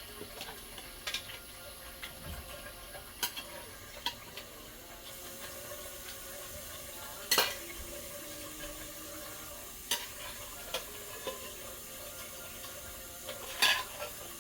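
Utensils and pot clinking and knocking while fish goes into a pot of soup: about eight separate knocks, the loudest about seven seconds in and near the end, over a steady faint hiss.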